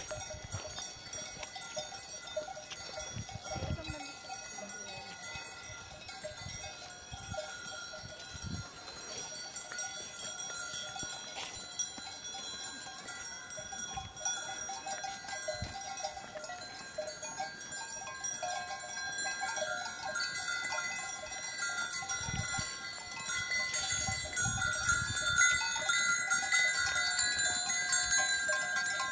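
Bells on a herd of walking cattle ringing continuously, growing louder in the last few seconds as the cows pass close by.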